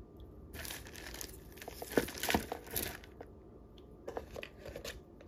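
Plastic jewelry bag crinkling and rustling as it is handled and opened, with a few sharp clicks around two seconds in and a shorter burst of rustling and clicks near the end.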